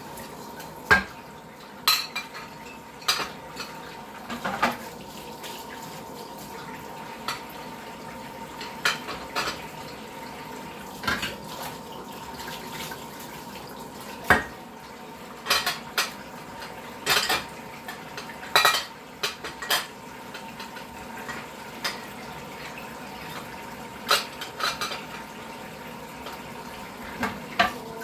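Dishes, cups and cutlery clinking and knocking as they are handled and loaded into a small dishwasher. There are many irregular sharp clinks over a steady background hiss.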